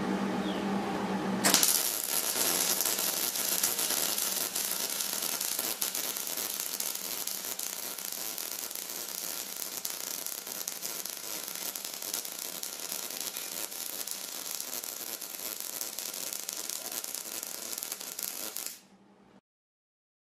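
MIG welding arc on steel plate: about a second and a half in, the arc strikes and runs as a steady crackle while the butt-weld bead is laid, then stops near the end.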